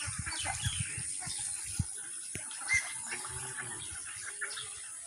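Farm poultry, chickens and ducks, calling together: many short, falling chirps overlapping one another, with low knocks and a steady high hiss underneath.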